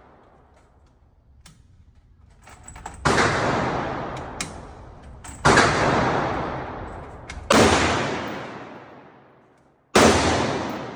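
Four single gunshots at a shooting range, spaced about two to two and a half seconds apart, each dying away over about two seconds, with a few small clicks between them.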